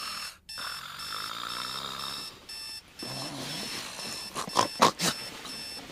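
Cartoon digital alarm clock beeping, rapid high beeps about three a second. Under it, a sleeping character's snoring, with a few short loud snorts about four and a half seconds in.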